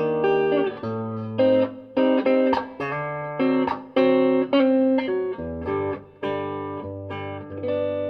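Avenue Hue guitar played as a sound demo: plucked chords and single notes struck about every half second to second over long sustained bass notes.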